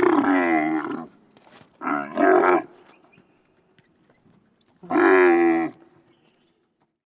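Camel grunting: three calls that waver in pitch. The first is already under way at the start and ends about a second in. A shorter two-part call comes about two seconds in, and a third of about a second follows near the five-second mark.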